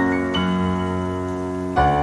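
Solo piano playing a classical piece. A new note sounds about a third of a second in, and a louder chord is struck near the end.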